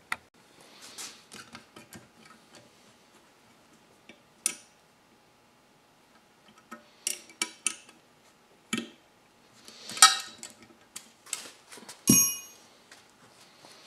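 Hand tools and steel hardware clicking and clinking against a metal bracket as an AirDog lift pump is bolted onto it, in scattered irregular knocks with quiet gaps. A metal piece rings briefly near the end.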